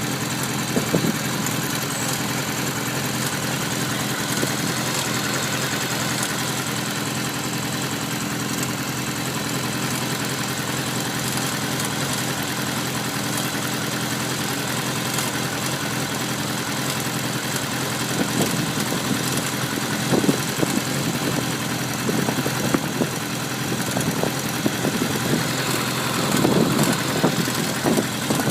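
Kawasaki ZR-7S motorcycle's inline-four engine idling steadily, with occasional louder clicks, most about a second in, around two-thirds of the way through and near the end. This is the intermittent clicking ('kachi-kachi') abnormal noise that the owner hears from the engine at 45,000 km.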